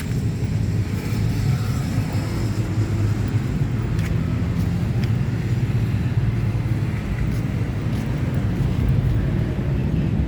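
Engine idling steadily with an even low rumble, and a couple of faint clicks about four and five seconds in.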